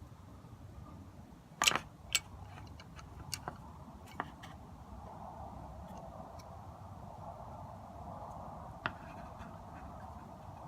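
Scattered clicks and taps of small screws and parts being handled and fitted during hand assembly, the loudest a little under two seconds in. A faint steady hum sits underneath from about halfway through.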